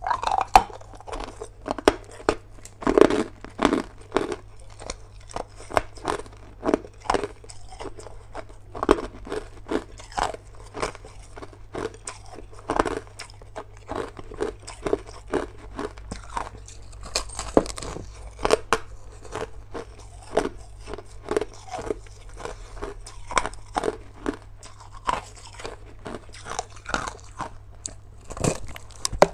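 Crushed ice being bitten and chewed close to the microphone: an irregular run of sharp crunches, a few a second, over a steady low hum.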